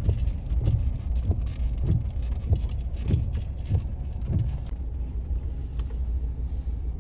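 4x4 vehicle heard from inside, driving on a muddy, rough road: a steady low rumble of engine and road. Over it, a repeated knock comes about every 0.6 s for the first four or five seconds, with scattered sharp ticks.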